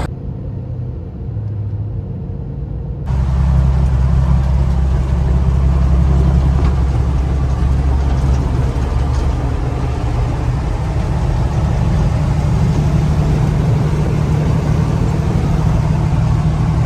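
Heavy dump truck engine running steadily at idle with a deep rumble. About three seconds in the sound jumps louder and fuller, as if heard closer, and then holds steady.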